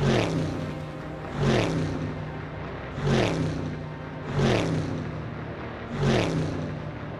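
A sound effect repeated five times, about every one and a half seconds: each a sudden burst whose pitch drops and settles into a steady low hum.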